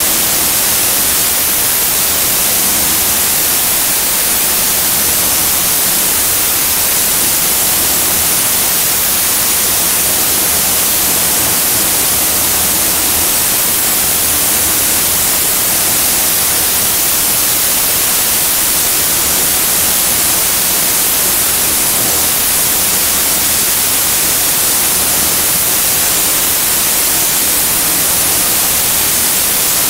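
Steady loud hiss of compressed air from a paint spray gun in a spray booth, unbroken throughout.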